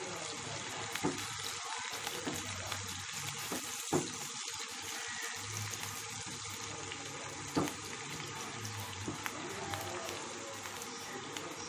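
Chopped onions and curry leaves with turmeric frying in oil in a kadai, sizzling steadily as a spatula stirs them. Two brief knocks come about four and seven and a half seconds in.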